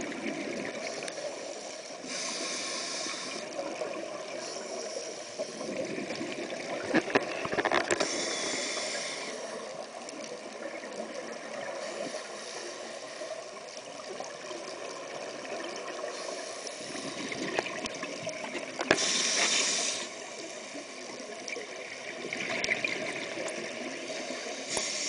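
Scuba regulator bubbles recorded underwater through a camera's waterproof housing. Exhaled bubbles burst out with a hiss about every five seconds, over a steady muffled underwater rush.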